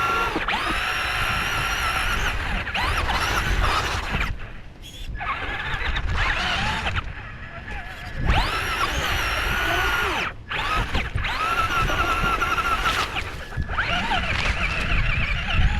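Small electric motor of a radio-controlled car whining in several bursts of two to three seconds, each starting with a rising pitch as it speeds up, with short breaks between them and a low rumble underneath.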